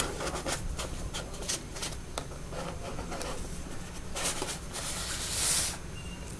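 Cardboard packaging and wooden colored pencils in their box being handled: a run of light clicks and taps, then, about four seconds in, a longer scraping rustle as a cardboard layer is slid out of the box.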